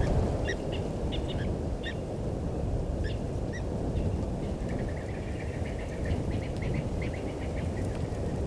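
Wild birds calling in short chirps, with a quick run of chirps about five to seven seconds in, over a steady low rumble.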